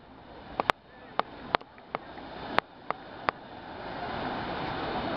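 Waves washing onto a sandy beach, a rushing noise that swells steadily louder over the first few seconds and then holds. A string of sharp clicks breaks in during the first three seconds.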